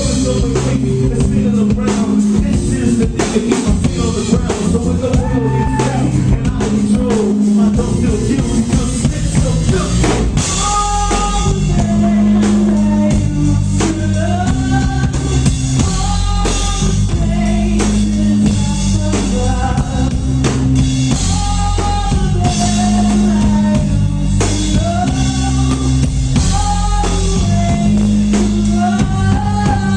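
Live rock band playing: electric bass, drum kit and a Roland VK-7 organ keyboard. A repeating melodic line of gliding phrases comes in over the bass and drums about ten seconds in.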